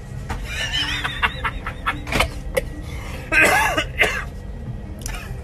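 A woman's voice making wordless, cough-like and laughing sounds, with a louder wavering squeal about halfway through. Beneath it runs the steady low rumble of an airplane cabin.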